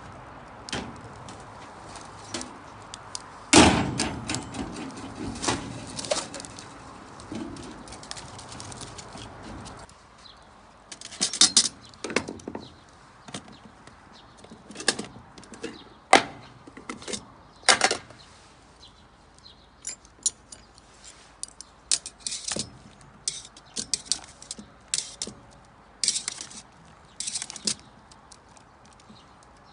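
Irregular sharp knocks and clicks of objects being handled, with one loud knock about three and a half seconds in.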